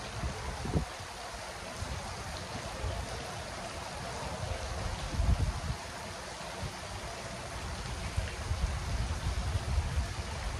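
Pond fountain jet splashing steadily into the water, with an uneven low rumble underneath.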